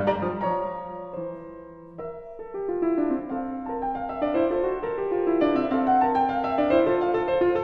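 Background piano music, a slow melody of held notes that dies away about a second in and picks up again after about two seconds.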